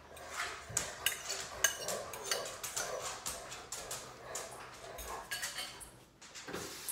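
Light clinks and knocks of kitchen utensils and dishes being handled, a scattered run of short sharp taps, some with a brief ring.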